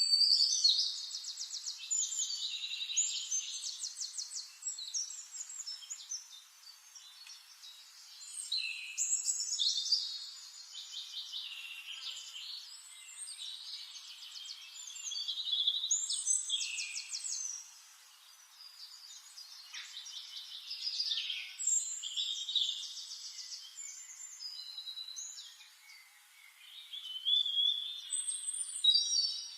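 A songbird singing complex, high phrases of rapid trills mixed with whistled notes, a new phrase starting every six to eight seconds with quieter gaps between.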